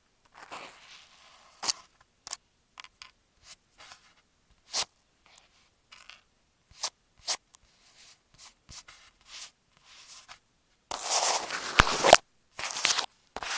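Apple EarPods' inline microphone wrapped in masking tape, rubbed and tapped directly on the mic: scattered light ticks and taps, then about eleven seconds in two short bursts of loud, rough scratching on the taped surface.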